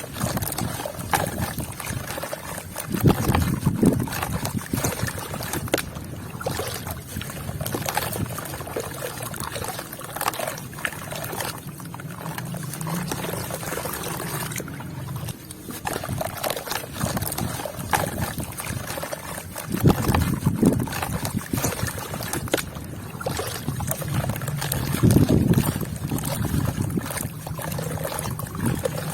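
Water pouring and trickling onto sand and red dirt, with a soft crumbling crackle as the wet dirt breaks up. Louder spells come about three, twenty and twenty-five seconds in.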